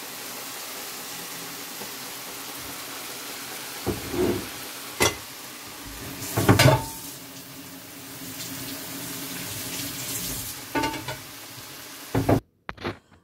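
Prawns and broccoli sizzling steadily in a frying pan as the sauce cooks down, with a few short knocks against the pan about four to seven seconds in. The sizzle cuts off suddenly near the end.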